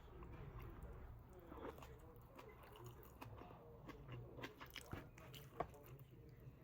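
Close-miked eating: faint chewing and biting, with a run of small crunchy clicks and soft wet mouth sounds, one sharper crunch near the end.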